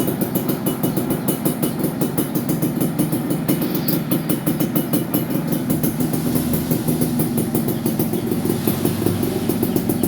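Yamaha F1ZR's single-cylinder two-stroke engine idling steadily with a fast, even pulse, running crisply as the seller claims.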